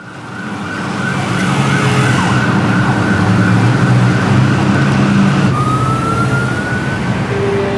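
City street traffic noise, with engines and passing vehicles, fading in at the start; a siren rises slowly in pitch in the second half. A sustained music note comes in near the end.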